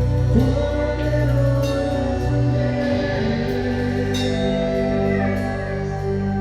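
Church worship band playing a slow gospel song, with sustained chords and singing.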